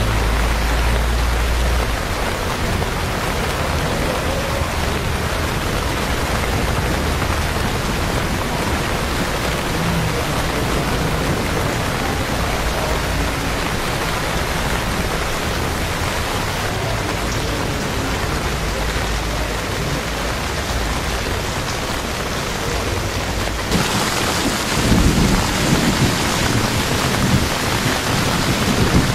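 Steady rain hissing and splashing on wet street pavement. About 24 seconds in it gets louder, with a low rumbling underneath.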